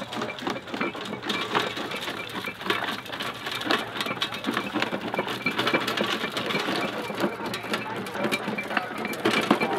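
Vintage stone crusher with twin flywheels running and crushing stone, a dense irregular clatter of knocks and rattles over a quick, even ticking from the machine.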